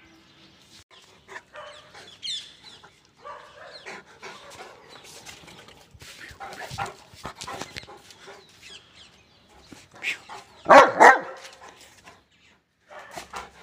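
St. Bernard dog barking twice in quick succession about eleven seconds in, the loudest sound here; softer clicks and rustles before that.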